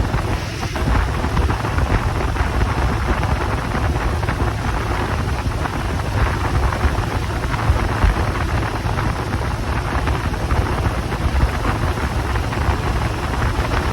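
Wind rushing over the microphone on a moving motorcycle: a loud, steady rush with a heavy low rumble.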